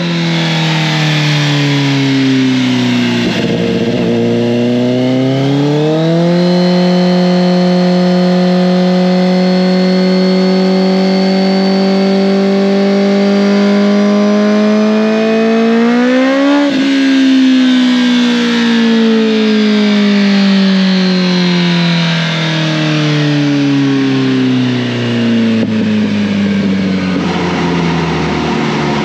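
Kawasaki ZX-10R's inline-four engine through an M4 titanium exhaust, revving through a long pull. The note dips, then climbs steadily for about ten seconds to a sharp peak a little past halfway. The throttle then closes and the revs wind down slowly.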